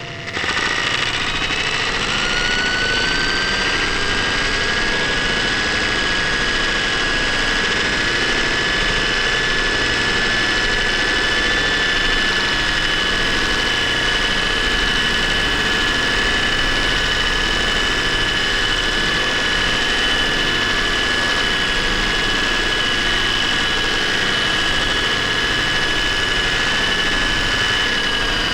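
Science-fiction alien drill sound effect: a dense, steady mechanical grinding drone with several high whining tones over it. The whine rises as the drill spins up in the first couple of seconds, holds steady, and begins to wind down at the very end.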